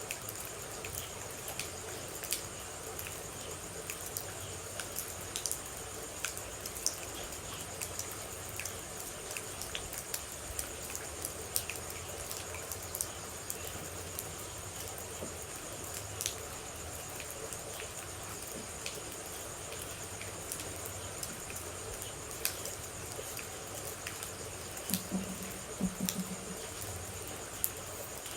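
Steady light rain with scattered individual water drops landing in sharp ticks, over a constant high insect trill. Two short low notes sound near the end.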